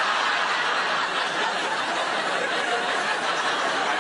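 A large studio audience laughing loudly and continuously.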